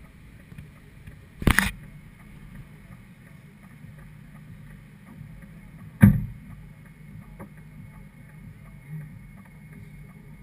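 Steady low hum of the Ford Explorer's V8 idling, picked up by a camera mounted on the hood, with two sharp knocks, one about a second and a half in and a louder one about six seconds in.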